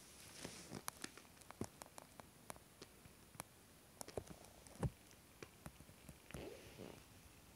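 Faint scattered ticks and soft pats of a kitten's paws and claws on a fabric couch cover as it plays, with one firmer thump about five seconds in.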